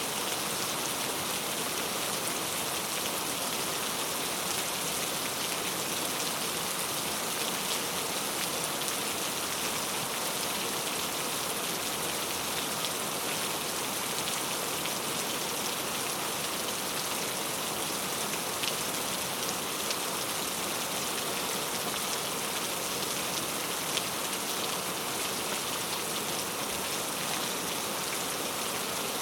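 Steady rainfall pattering on a surface, an even hiss with a few sharper drop ticks scattered through it.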